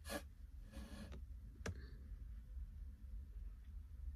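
A few faint clicks, the sharpest about one and a half seconds in, with a soft rustle about a second in, over a low steady rumble.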